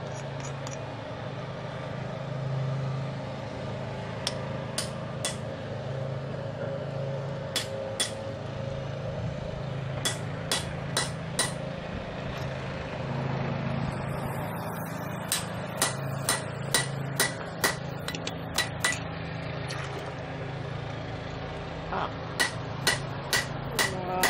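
Hammer blows driving a chisel into a red-hot railroad spike on an anvil to punch the tomahawk's handle hole. Each strike rings sharply, and they come in short runs of two to four, closer together near the end. Underneath is a steady low hum.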